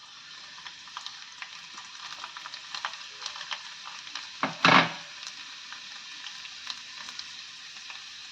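Ajwain (carom seeds) and garlic cloves sizzling in hot mustard oil in a pan: a steady hiss full of small crackles, with one brief louder scrape about halfway through.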